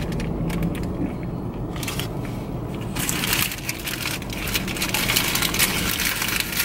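Eating noises up close: a mouthful of burger being chewed while its paper wrapper crinkles and rustles in the hands, the crackling getting louder about three seconds in.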